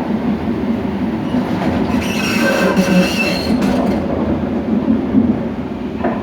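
Train running, heard at the coupling between two cars: a steady rumble, with a squeal in several high tones lasting about a second and a half around the middle.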